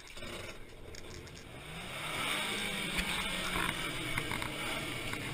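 An SUV's engine running at low revs; the hum climbs slightly and gets louder about two seconds in, holds, and eases down near the end.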